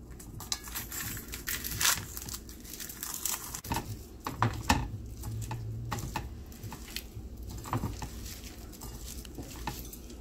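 Fried dried red chillies, onion and garlic being crushed and mixed by hand on a plate: an irregular crackling and crunching of the brittle fried chillies breaking up.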